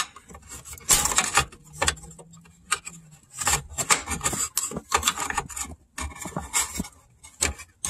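A metal pick scraping and clicking against the plastic quick-connect fitting of a fuel line at the fuel filter, in irregular bursts, as the retaining clip is pried open to release the line.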